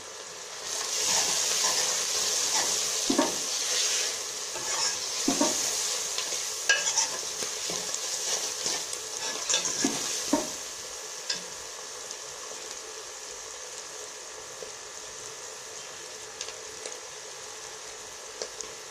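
Onion and ground-spice masala sizzling in hot oil while a metal ladle stirs it in an aluminium pot, scraping and clinking against the metal. The sizzle swells about a second in and drops to a low steady hiss when the stirring stops about ten seconds in.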